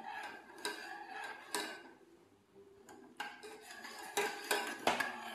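A metal spoon stirring liquid in a small steel saucepan, scraping and clinking against the pan in irregular knocks, with a quieter gap in the middle.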